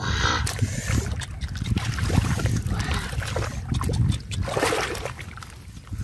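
Hands splashing and squelching in shallow muddy water while digging for fish, with a burst of splashing right at the start and another about four and a half seconds in; a steady low rumble runs underneath.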